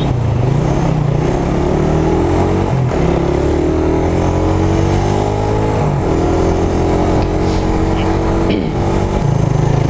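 Suzuki Raider R150 carburetted single-cylinder four-stroke engine accelerating through the gears. The pitch climbs in each gear and drops at two upshifts, about three and six seconds in, then falls away near the end as the engine slows.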